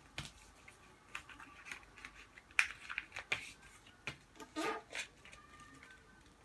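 A sheet of paper being folded and creased by hand on a glass tabletop: scattered rustles and crisp crackles as the folds are pressed flat, loudest a little past halfway.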